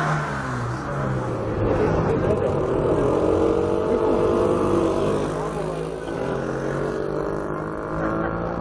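Vintage cars and old motorcycles driving past one after another at parade pace, their engines rising and falling in pitch as each one goes by.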